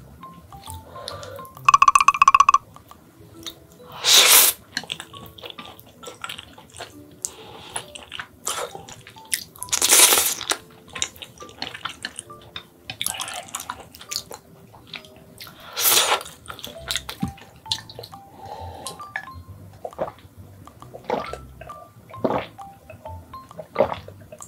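Close-miked eating: creamy rosé Buldak noodles slurped in three long slurps about 4, 10 and 16 seconds in, with chopsticks clicking against the dishes, over soft background music. About two seconds in a short, loud buzzy tone sounds.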